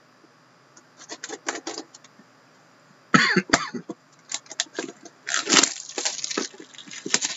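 A sealed cardboard trading-card box being slit with a hobby knife and prised open by hand: irregular bursts of scraping and rustling, busiest from about five to six and a half seconds in.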